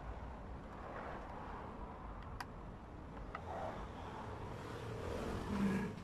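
Low background rumble that swells near the end, with a few faint light clicks as the wires and plastic connectors of a washing machine's control panel are handled.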